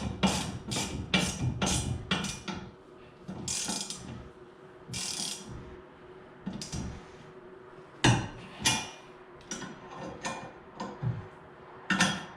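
Ratchet wrench clicking as bolts are tightened: a quick even run of clicks, about four a second, for the first two seconds, then a couple of scrapes and scattered single clicks and knocks.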